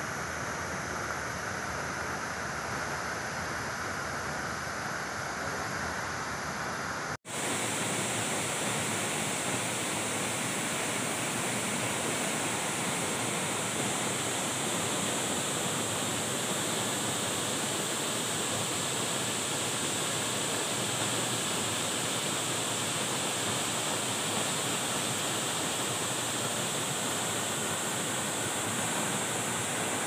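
Waterfall pouring and splashing into a plunge pool: a steady rushing of water. The sound cuts out briefly about seven seconds in, then resumes a little brighter.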